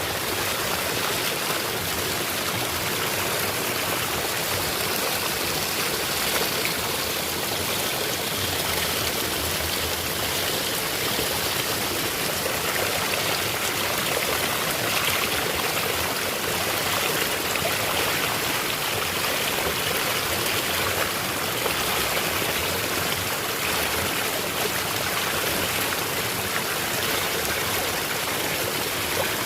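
Mini natural waterfall in a small stream, water running and splashing steadily.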